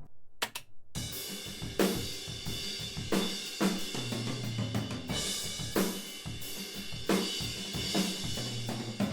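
Recorded drum kit playing a steady groove, with snare hits and a wash of cymbals, heard through a mid-side room-microphone pair. It is mostly room sound, with a very spread-out stereo image. The drums come in about a second in.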